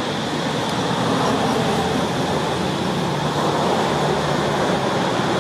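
Steady, even rushing background noise with no distinct sounds standing out.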